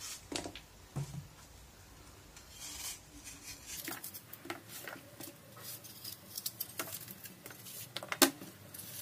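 Paring knife cutting the cores out of apple pieces: faint, scattered slicing and scraping with small clicks and taps as pieces are set on the cutting board, the sharpest click about eight seconds in.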